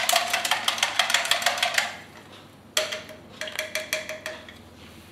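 A metal utensil beating egg, water, salt and lemon juice in a plastic measuring jug: rapid clicking taps against the jug's sides. It stops about two seconds in, then resumes with a slower run of taps for about a second and a half.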